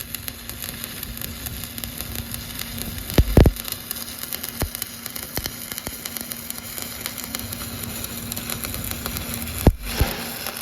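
Stick-welding (SMAW) arc crackling and sizzling steadily, full of fine ticks, over a steady low hum, with louder pops about three seconds in and twice near the end.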